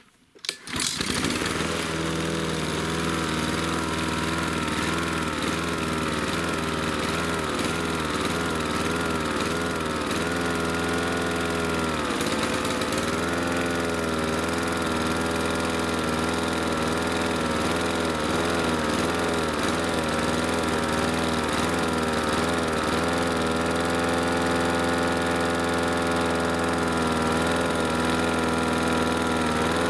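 Honda GCV160 lawn mower engine starts about half a second in and runs at speed, its pitch wavering up and down every second or two: the engine surging (hunting), a fault the owner suspects comes from blocked carburettor jets. Near the end the speed holds steadier.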